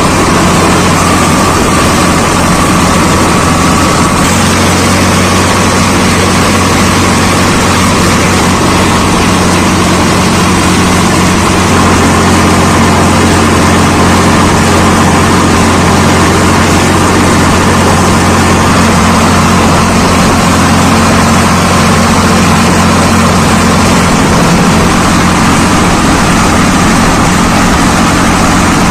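Swaraj 855 FE tractor's three-cylinder diesel engine running steadily as the tractor drives along the road, heard close up from the driver's seat. There is a steady low hum and a steady higher whine.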